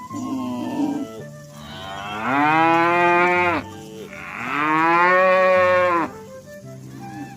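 Cows mooing: a short, softer moo at the start, then two long, loud moos one after the other, each lasting about a second and a half.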